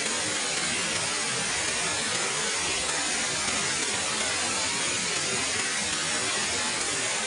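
Waterfall water falling and splashing, a steady, even rushing hiss with no letup.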